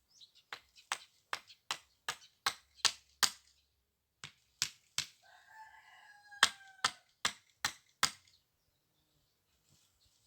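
Two runs of sharp knocks, about two or three a second, the second run louder, with a rooster crowing in the background midway through.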